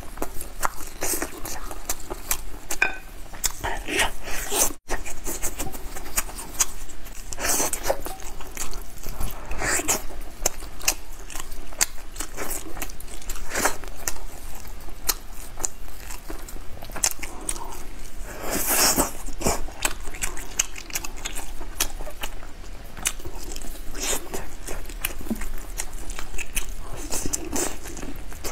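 Close-miked eating of braised pork ribs: biting and chewing the meat with many small wet clicks and crackles, which drop out briefly about five seconds in.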